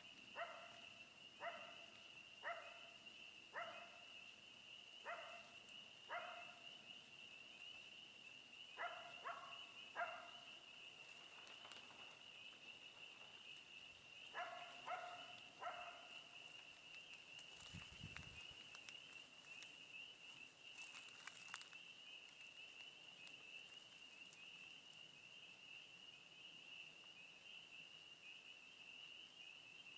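Faint dog barking in short runs of one to three barks for about the first half, then stopping. Under it runs a steady, fast-pulsing high trill of insects at dusk.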